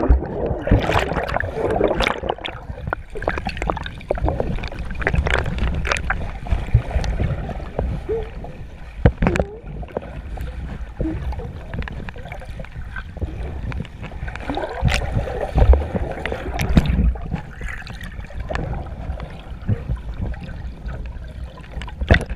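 Underwater sound picked up by a submerged GoPro: muffled low rumbling and gurgling of churned water and rising bubbles, with scattered knocks. The churning is strongest in the first couple of seconds and again about 15 seconds in.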